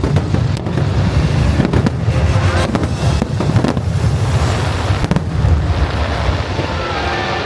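A dense, continuous barrage of aerial fireworks: rapid overlapping booms with crackle, the bursts easing off near the end.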